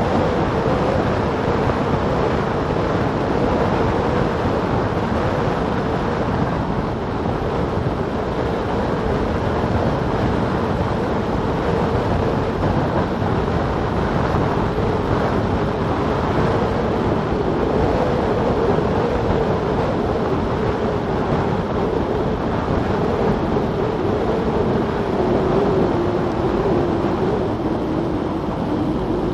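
Wind rushing over a bike-mounted action camera's microphone, mixed with tyre roar on asphalt, during a fast road-bike descent at about 30–35 mph. A steady hum runs under the noise and sinks slightly in pitch near the end as the bike slows.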